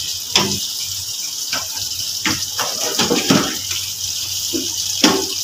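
Hot cooking oil left in a large wok after frying, sizzling with a steady high hiss, with a few short clicks scattered through.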